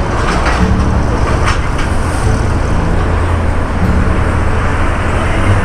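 Traffic noise from riding close behind a heavy lowbed truck: a steady, loud, low engine rumble with road noise.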